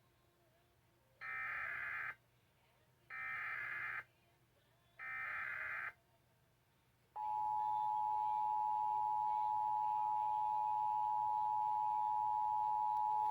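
Emergency Alert System broadcast of a Required Monthly Test. It opens with the SAME header: three bursts of digital data tones, each about a second long and about a second apart. About seven seconds in, the steady two-tone EAS attention signal comes on.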